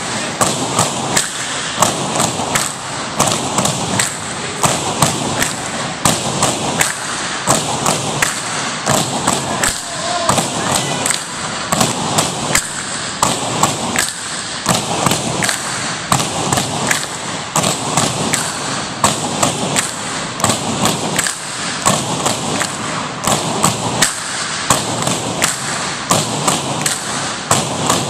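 Several pairs of tinikling poles knocked on a wooden gym floor and clapped together in the tinikling beat, a steady repeating rhythm of knocks.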